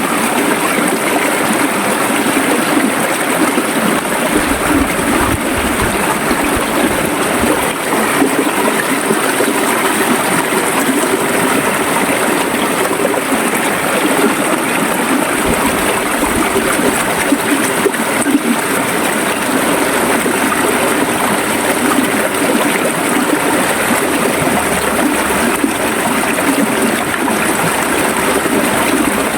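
River water flowing steadily, an even rush of running water with no change in level.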